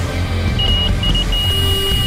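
Electronic carp bite alarm sounding over background music: two or three short high beeps, then an unbroken tone from a little past halfway in, the sign of a carp running off with the line.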